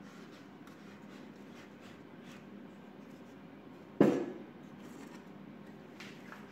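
Wooden cart wheels handled on a workbench: light rubbing and scraping of wood, then one sharp wood-on-wood knock about four seconds in as a wheel is put onto the cart's axle, and a faint tap near the end.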